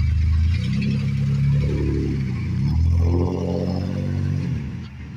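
2001 Dodge Ram 1500 van's engine revving as it pulls away through its newly fitted cold air intake. The pitch climbs, dips briefly about two and a half seconds in, climbs again, then fades as the van drives off.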